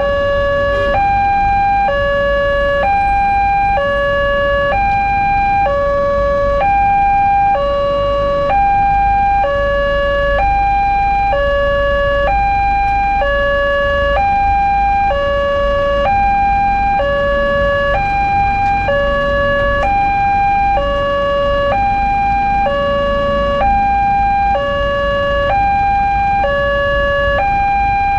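Railway level-crossing warning alarm: an electronic two-tone signal alternating steadily between a higher and a lower tone, each held about a second, sounding while the crossing is closed for an approaching train. A low traffic rumble runs underneath.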